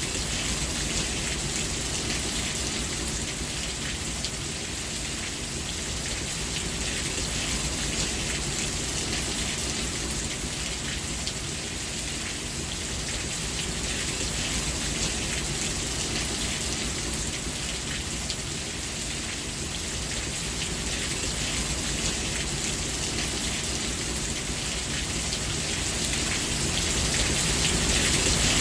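Steady heavy rain falling, an even dense hiss that swells a little near the end.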